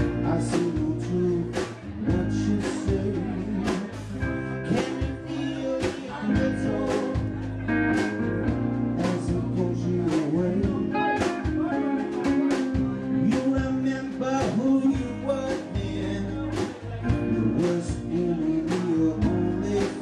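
Live band playing: electric guitars, bass guitar, acoustic guitar and drum kit, with the drums keeping a steady beat.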